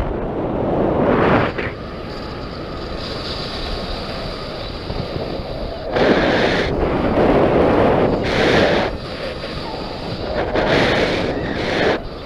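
Wind buffeting the microphone in flight, swelling into louder gusts three times: at the start, from about six to nine seconds in, and near the end.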